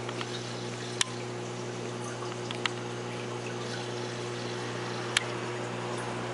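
Reef aquarium pump humming steadily with water trickling and splashing, broken by three short sharp clicks.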